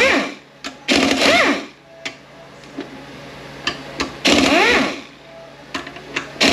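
A handheld power tool runs in short bursts, spinning bolts out of a 9T65 transmission case, three times in all. Each burst rises in pitch and then falls. Sharp metallic clicks come between the bursts.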